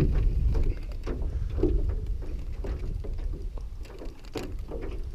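Low wind rumble on the microphone, heaviest in the first two seconds and then easing, over water lapping against a small boat's hull, with scattered light knocks and clicks.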